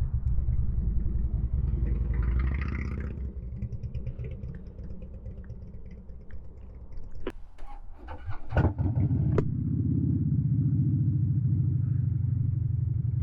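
Harley-Davidson motorcycle engine idling in stopped traffic, with a few sharp clicks and knocks about seven to nine seconds in, after which the engine runs louder and steady as the bike creeps forward a couple of feet.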